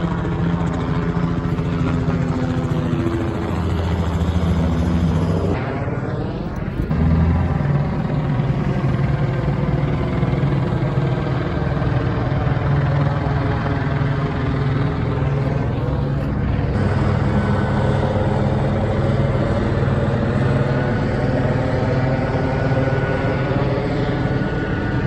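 Police helicopter flying overhead: a steady rotor beat and turbine drone with a slowly sweeping, phasing tone. The sound shifts abruptly twice.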